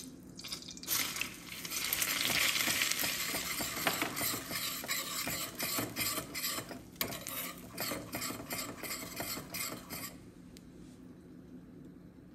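Red powdered pepper sizzling in hot melted butter in a stainless steel saucepan while a spoon stirs it, the spoon clicking and scraping against the pan. The sizzle swells about a second in and dies down to a faint hiss about ten seconds in.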